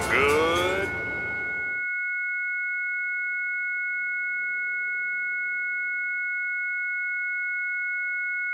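Steady, high-pitched electronic tone made of two pure notes, held unchanged, like an ear-ringing sound effect. A rising sweep leads into it at the start, while music fades out in the first couple of seconds.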